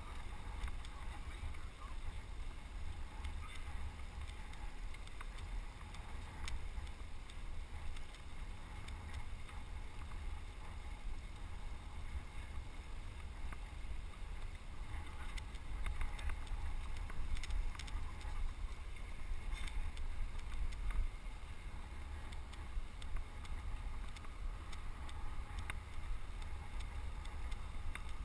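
Wind buffeting a GoPro HD Hero helmet camera's microphone while riding a road bike, a steady, fluttering low rumble, with faint scattered clicks.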